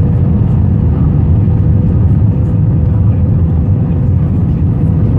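Loud, steady low rumble inside an Airbus A321 cabin just after landing, with a thin steady whine running through it.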